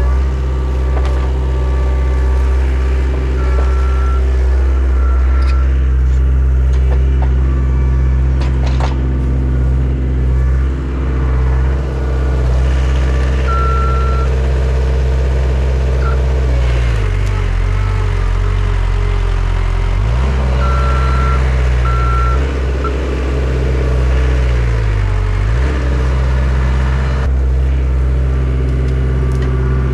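Mustang compact track loader working a root grapple: its diesel engine runs steadily and sags in pitch twice as it bogs under load, while its backup alarm beeps in several short runs as it reverses. A couple of sharp cracks about a third of the way in.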